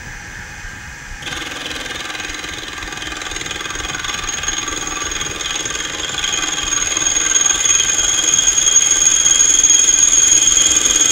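A half-inch end mill spinning at about 750 RPM in a milling machine, cutting the top edge of a cast iron casting. About a second in, a steady high-pitched cutting whine starts over the running spindle, and it grows gradually louder as the table feeds the work into the cutter.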